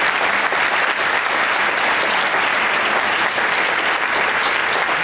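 An audience applauding in a theatre: a steady, dense clapping.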